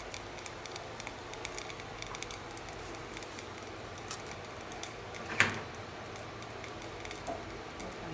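Chickpea stew heating in a steel pressure-cooker pot on a gas stove: a steady faint hiss with many fine crackling ticks, and one louder click about five seconds in.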